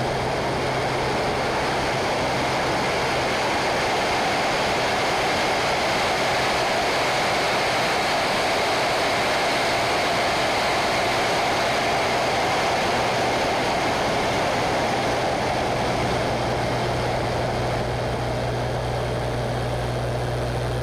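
Curtiss P-40 Warhawk's liquid-cooled V12 engine and propeller running steadily in flight, with heavy wind rush over a camera mounted on the airframe.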